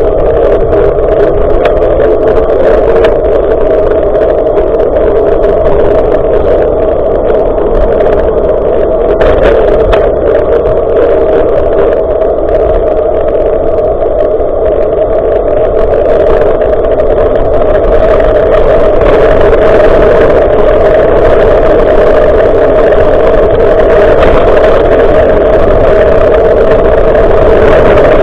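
Steady, loud wind buffeting and road rumble on an action camera's microphone while riding a bicycle, getting a little louder about two-thirds of the way through.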